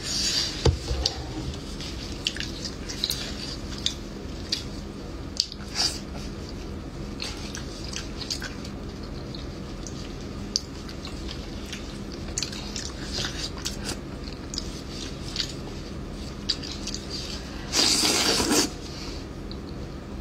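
Close-up eating sounds: wet lip smacks, sucking and chewing as soft, fatty stewed fish is bitten and sucked from gloved fingers. There is a louder slurp lasting about a second near the end.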